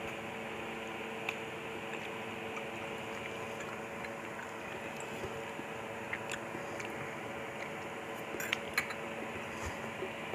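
Eating noodle soup: faint chewing over a steady hum, with a few light clinks of utensils against a bowl near the end.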